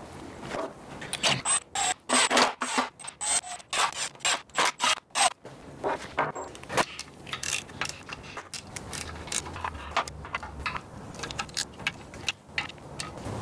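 Small steel bolts clinking and scraping in a metal cake pan as they are picked out by hand and set into an aluminium engine oil pan: a dense run of sharp metallic clicks over the first few seconds, then lighter scattered clicks.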